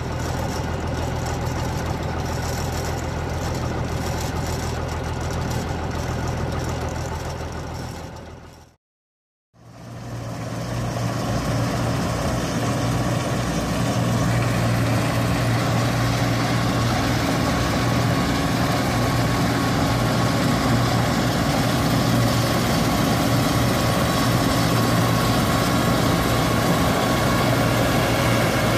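Arbos 125 combine harvester's Perkins six-cylinder diesel running steadily. After a brief silent gap about nine seconds in, the combine is heard louder, working under load while harvesting wheat, its engine and threshing machinery running together.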